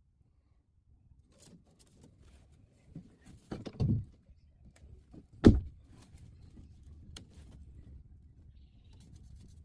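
A few dull knocks about three and a half seconds in, then one sharp knock a couple of seconds later, the loudest sound, with light clicks and handling noise around them.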